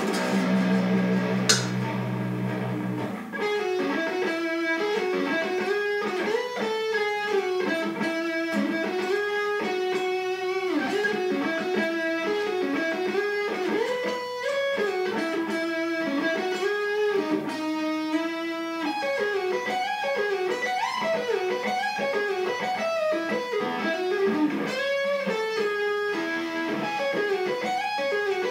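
Chapman ML7 seven-string electric guitar played through an amp. A low chord rings out for about three seconds, then the guitar plays a melodic single-note line of quick and held notes.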